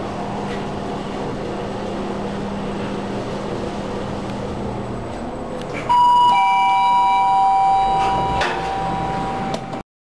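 Schindler Elegant machine-room-less lift car travelling with a steady hum, then about six seconds in a loud two-note electronic chime, a higher note followed by a lower one, that rings on for a few seconds. A click sounds near the end.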